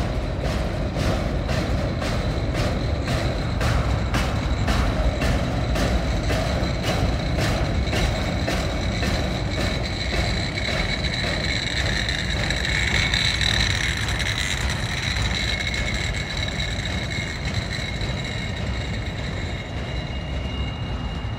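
Freight train boxcars and autoracks rolling past: a steady low rumble with a regular clicking of wheels over the rails. A thin high squeal from the wheels joins about halfway through and lingers to the end, while the clicking fades.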